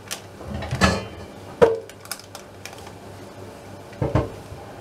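Silicone spatula spreading a thick batter across a parchment-lined metal baking tray: soft scraping with a few sharp knocks and taps against the tray.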